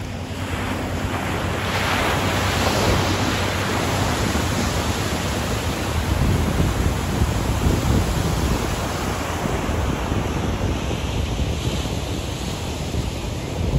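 Pacific Ocean surf breaking and washing up a sandy beach, a continuous rushing hiss over a low rumble that swells as waves crash, about two seconds in and again midway.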